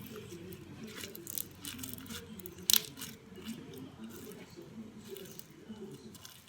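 Runny, sticky homemade slime being handled by hand, with wet squishing and scattered small clicks, and one sharper click a little under three seconds in.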